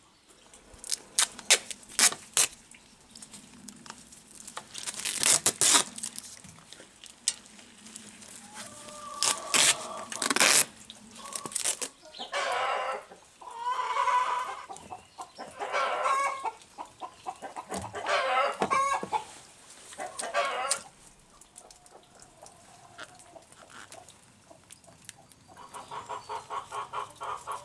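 Chickens clucking and calling several times, one to two seconds each, with a rooster crowing among them; a fast run of pulsing clucks comes near the end. Sharp clicks and knocks of hand tools and metal parts on the engine, the loudest sounds here, fall in the first half.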